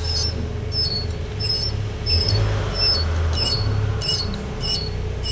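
Front brake of a BMW 1 Series squealing as the wheel turns: short high squeaks about twice a second, from the metal anti-squeal shim rubbing on the brake disc. Slight wheel bearing play lets the shim touch the disc.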